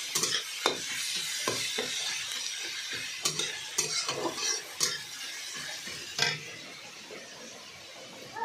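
Onions and parwal (pointed gourd) pulp sizzling as they fry in oil in a steel pan, with a metal spoon scraping and knocking against the pan in irregular strokes. The knocks stop about six seconds in, leaving a quieter sizzle.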